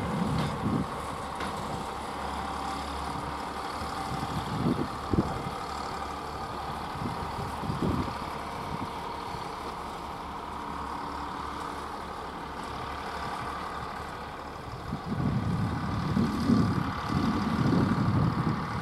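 Class 799 shunting locomotive running slowly along a yard track with a steady mechanical hum. Bursts of low rumble come near the start and more strongly in the last few seconds.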